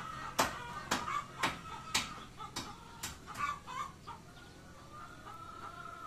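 Chickens clucking, with sharp hammer blows about twice a second that stop about three seconds in.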